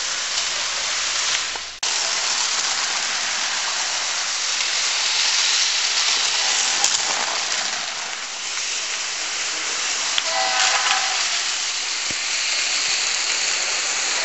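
Steady rushing, hissing noise of a moving train, with a brief whistle of several tones sounding together about ten and a half seconds in. The noise cuts out for an instant just under two seconds in.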